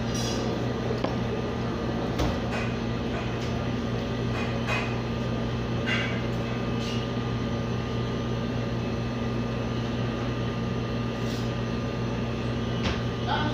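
Steady machine hum holding a few fixed tones, with a few brief light clicks and clinks scattered through it.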